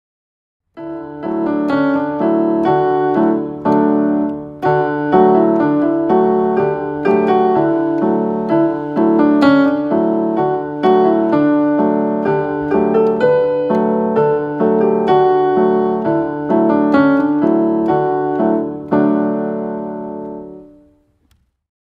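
Piano-toned keyboard playing a simple children's song melody with a steady beat over held low bass notes. It starts about a second in and dies away near the end.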